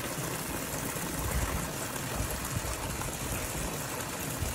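Steady rushing of running water with an uneven low rumble underneath.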